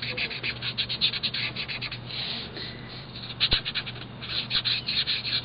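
Stampin' Up! felt-tip marker scratching on paper in quick, short back-and-forth strokes as a stamped image is coloured in. One soft knock about three and a half seconds in.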